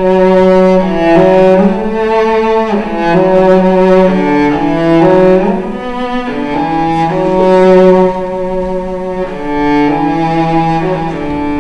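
Bowed strings, led by a cello, playing a slow melody in long held notes, with two or more parts sounding together.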